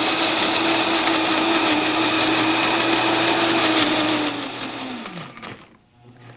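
Food processor motor running at full speed, puréeing mango and strawberries into jam. About four and a half seconds in it is switched off, and its pitch falls as it spins down and stops.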